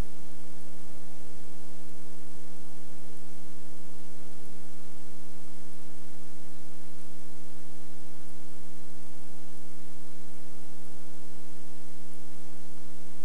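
Steady electrical mains hum with hiss, unchanging in level, on a blank stretch of the tape transfer's audio line where no recording is playing.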